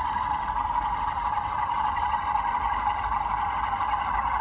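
Bachmann OO gauge Class 47 model diesel locomotive running along the track, giving a steady, unchanging engine-like drone.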